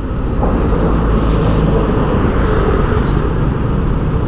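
Steady road traffic noise on a busy city street, with vehicle engines running and tyres on the road.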